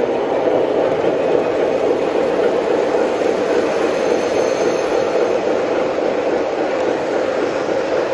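Model trains running on the layout's track: a steady rolling rumble of wheels on rail as a train of tank cars passes close by.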